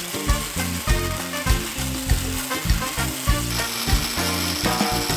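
Background music with a steady beat, over the hiss of a large old bandsaw cutting an oak futtock. A steady high whine comes in about three and a half seconds in.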